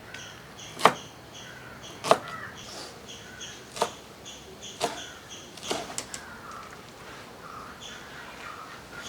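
Knife chopping raw chicken into small pieces on a wooden board: about six sharp chops spaced roughly a second apart, two of them close together about six seconds in. A faint high chirping repeats about twice a second behind them.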